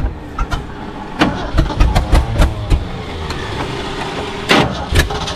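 1966 Ford F350's engine cranking on the starter in uneven low pulses.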